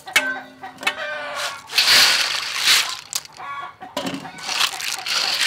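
A chicken clucking in short calls near the start and again a little past three seconds. Between them, water splashes in a metal bowl as a heap of river snails is tipped into it.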